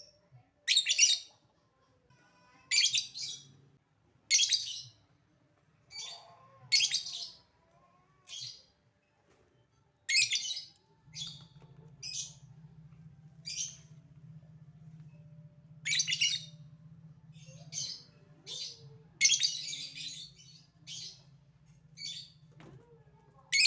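Lovebird calling in short, shrill bursts every second or two. A faint low hum runs under it from about halfway.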